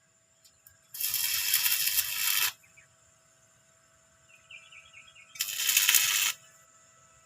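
Fireworks crackling in two dense bursts, the first about a second in and lasting a second and a half, the second shorter, a few seconds later.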